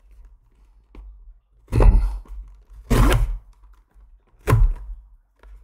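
An accessory box and its packaging being handled and opened by hand: a faint tap, then three short thunks and rustles about two, three and four and a half seconds in.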